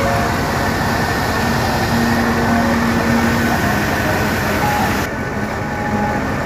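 Loud, steady mechanical running noise, its high end dropping away about five seconds in.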